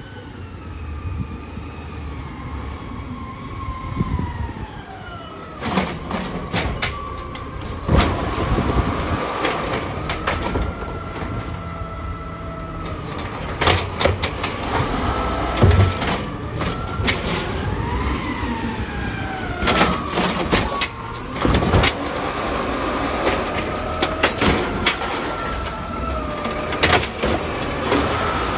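Automated side-loader garbage truck emptying a plastic recycling cart: the diesel engine rises and falls in pitch as it drives the hydraulic arm, with repeated sharp bangs and clatters as the cart is lifted, shaken out over the hopper and knocked against the arm.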